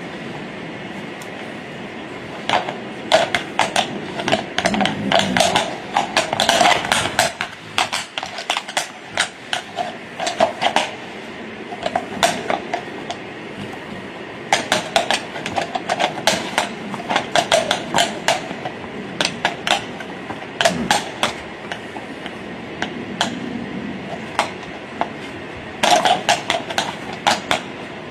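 Heavy draft horses' hooves clattering and scraping on cobblestones as they shift their weight: irregular clusters of sharp clacks, several a second, with short pauses between.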